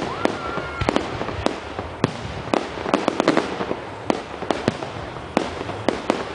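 Fireworks display: aerial shells bursting in sharp bangs at irregular intervals, roughly one every half second, with a quick cluster of cracks about three seconds in.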